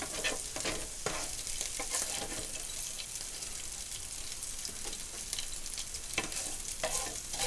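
Ground beef and chorizo sizzling in hot grease in a frying pan, with a spatula scraping and tapping against the pan now and then as the meat is scooped out.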